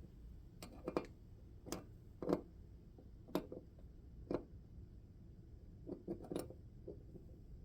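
Scattered light clicks and taps of small objects being handled and set down, irregular with a short cluster near the end.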